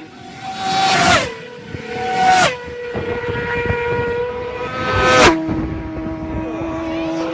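Racing motorcycles passing at high speed one after another, three passes in all. Each engine's high, steady note drops suddenly in pitch as it goes by.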